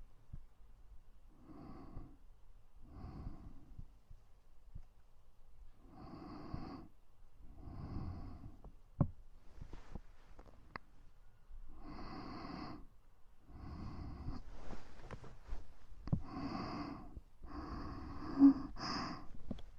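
Close-miked ASMR breathing: slow, soft breaths and exhales into the microphone, one every second or two with short pauses between. A few sharp clicks fall among the breaths, and a brief louder sound comes near the end.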